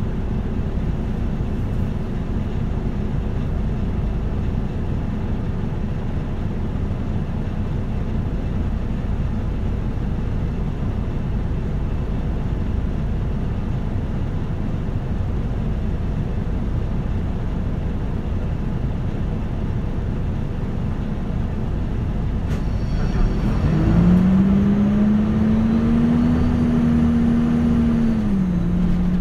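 Running sound inside a Nissan Diesel KL-UA272KAM city bus: steady engine and road noise. About 23 seconds in, the diesel engine note rises as the bus accelerates and holds, then steps down near the end.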